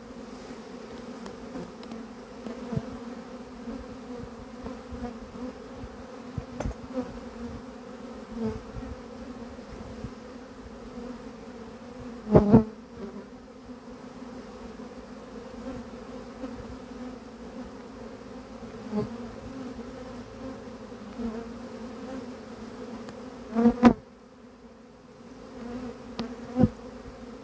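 A honeybee swarm buzzing close up in a steady drone, the bees stirred up as they are scooped off a branch into a hive box. Two loud knocks come about halfway through and near the end.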